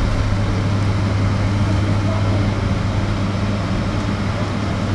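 Steady cabin noise of an electric bus on the move: an even low hum with road and tyre noise, no engine revving.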